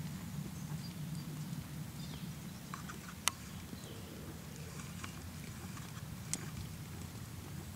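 Horse trotting on sand footing: soft, even hoofbeats over a low rumble, with a sharp click about three seconds in and another near the end.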